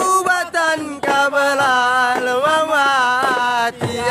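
Voices singing an Islamic devotional song of the hadrat tradition, in long held notes that bend slowly in pitch, with a few sharp knocks cutting in.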